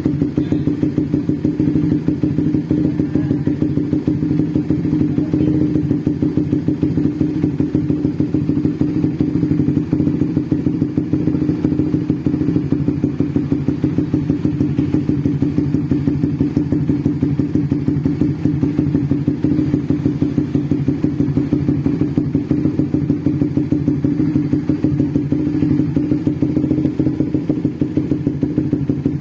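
Bored-up Suzuki GSX-R150 single-cylinder engine, fitted with a BRT bore-up kit, idling with a steady, rapid, even beat: the lumpy drum-like "drumband" or "helicopter" idle of a tuned engine.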